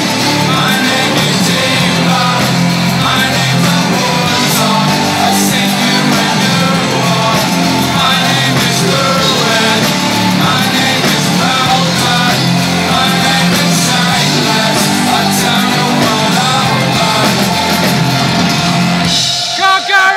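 A live rock band plays loud, with drums, keyboards and a lead singer. The music cuts off about a second before the end.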